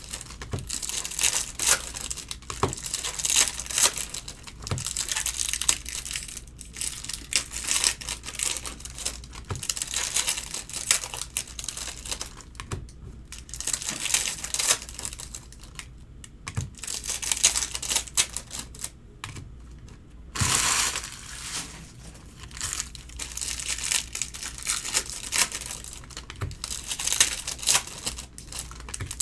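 Crinkling and tearing of 2022 Bowman Chrome baseball card pack wrappers being ripped open and handled, in irregular rustles, with a louder rustle about twenty seconds in.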